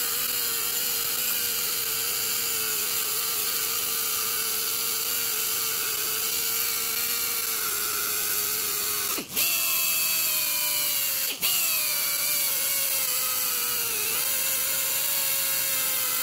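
Pneumatic die grinder fitted with a surface-conditioning disc running steadily, grinding rust and corrosion off the EGR valve's gasket flange to leave a clean mating surface. Its whine cuts out briefly twice, about nine and eleven seconds in, and picks straight back up.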